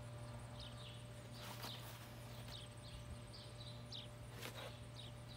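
Faint birds chirping: short, quick falling notes scattered irregularly, over a steady low hum.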